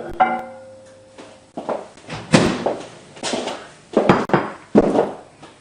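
A woman burping: a short, pitched burp just after the start, followed by several loud, short noisy bursts.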